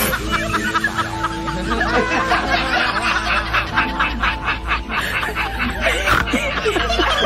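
Snickering laughter over background music with long held notes, with a run of quick laugh bursts a few seconds in.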